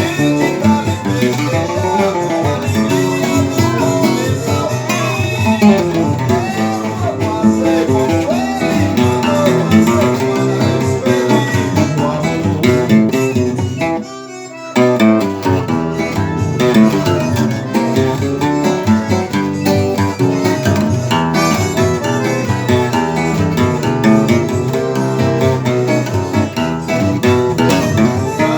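Seven-string steel-string acoustic guitar playing a lively instrumental tune of dense plucked notes, with a brief break about halfway through.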